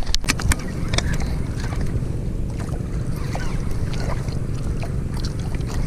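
Steady rumble of wind on the microphone and water moving around a small outrigger boat at sea, with a few sharp clicks in the first second.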